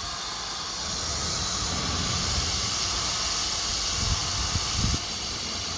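Steady hiss from the running CNC router, rising slightly about a second in, with a few soft low knocks around four to five seconds in.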